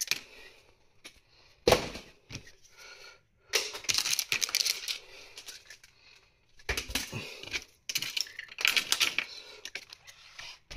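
Objects being moved about and set down on a glass-topped desk: a sharp knock a little under two seconds in, then irregular bursts of clatter and rustling.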